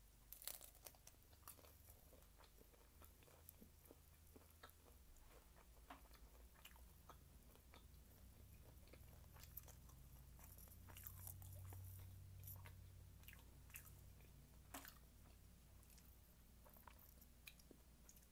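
Faint chewing of a crispy fried taquito, with a bite about half a second in and then scattered small crunches and mouth clicks over a low steady hum.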